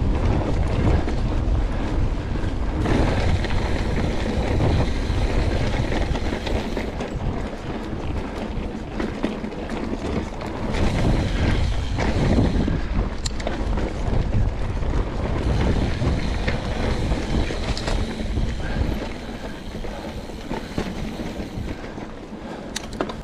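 Wind buffeting an action camera's microphone as a mountain bike rolls along a dirt trail, with tyre rumble and a few sharp knocks or rattles from the bike. The wind rush eases a little near the end.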